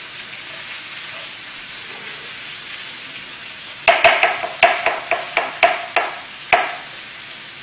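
Chef's knife chopping mushrooms on a cutting board: about a dozen quick, sharp strikes over some three seconds, starting about four seconds in. A steady sizzle of chicken frying in a pan runs underneath.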